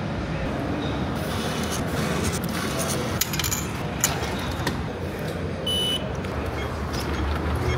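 Steady hiss and hum of a metro station concourse, with a few clicks as a fare token is taken from a ticket vending machine's tray, then one short electronic beep about six seconds in as the token is tapped on the fare gate reader.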